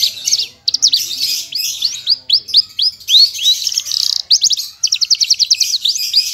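A Javan bush lark (branjangan, the parva race) sings a continuous, varied song of quick upswept whistles. About five seconds in, the notes run together into a fast trill of about a dozen a second.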